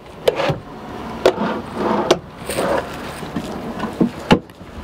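Wooden kitchen cabinet drawers and a cabinet door being pulled open and pushed shut. There are several sharp knocks and clicks, about four in all, with sliding and rustling between them.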